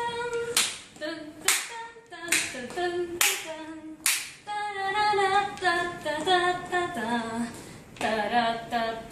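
A single voice singing the song's melody unaccompanied and without words, with hand claps marking the beat about once a second for the first four seconds; after that the singing goes on alone.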